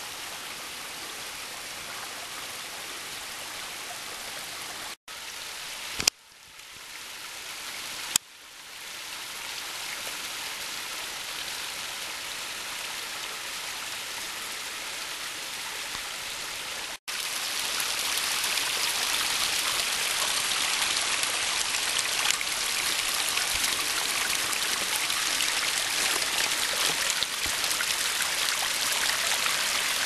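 Small forest waterfall, its thin stream splashing down over rocks in a steady hiss. Two sharp clicks cut in about six and eight seconds in, and the water is louder and brighter from a little past halfway.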